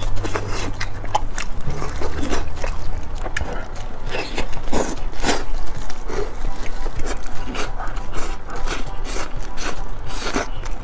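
Cooked whole chicken being torn apart by hand in plastic gloves, close to the microphone: a dense run of irregular crackling, rubbing and ripping noises from the meat and the gloves. Near the end it gives way to eating sounds as a piece is bitten and chewed.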